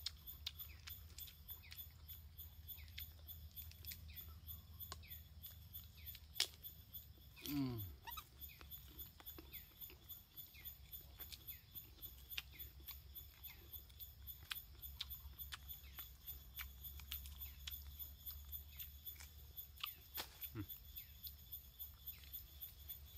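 Faint, irregular small clicks and crackles of eating: a baby monkey nibbling and chewing wild fruit and stalks. There is a brief falling vocal sound about a third of the way in.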